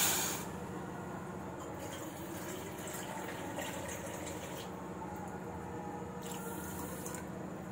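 Water poured from a steel measuring cup into a steel pan of sugar: a pour that ends just after the start and another brief pour a little after six seconds, over a faint steady hum.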